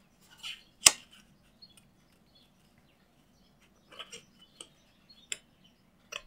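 Small craft scissors snipping through cardstock: a few separate, sharp snips, the loudest about a second in and fainter ones around four to five seconds in.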